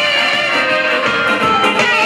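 Live band music with an electric guitar and a saxophone playing together.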